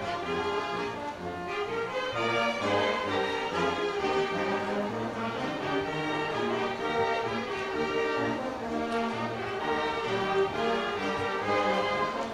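Brass band playing a tune on sousaphone, trumpets and saxophones with a bass drum, the notes changing steadily over a low bass line.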